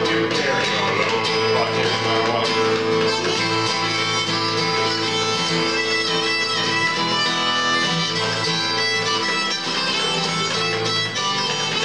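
Acoustic guitar music, an instrumental passage without singing.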